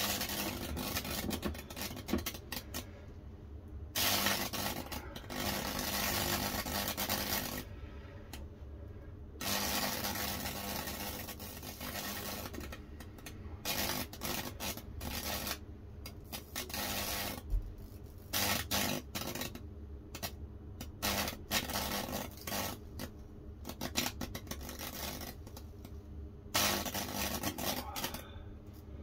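High-voltage fractal-burning electrodes sizzling and crackling as current arcs and burns through a wetted English cedar board. The sizzle comes in stretches of a few seconds broken by short pauses, over a steady electrical hum.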